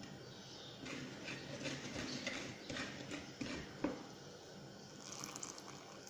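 Faint, irregular taps and knocks of a wire whisk working in a wooden mixing bowl, with one sharper knock about two-thirds of the way through.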